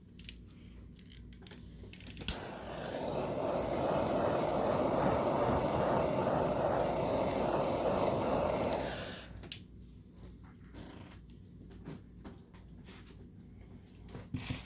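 A handheld torch clicks alight about two seconds in, then its flame hisses steadily for about seven seconds before it shuts off. The flame is being played over wet epoxy resin to pop the air bubbles at the surface.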